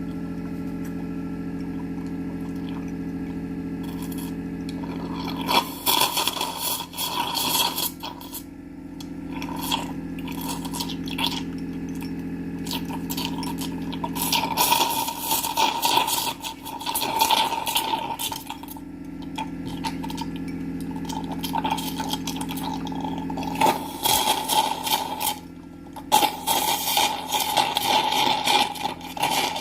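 Power Silens dental suction unit running: a steady motor hum, broken from about six seconds in by irregular spells of loud, hissing, clicking suction noise as the tip draws in air, which come and go several times.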